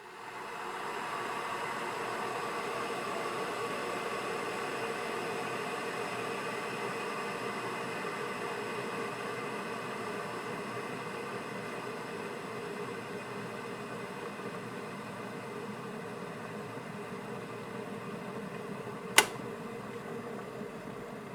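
Kettle heating up to the boil: a steady rushing hiss and rumble that sets in at the start and eases slowly, with one sharp loud click near the end.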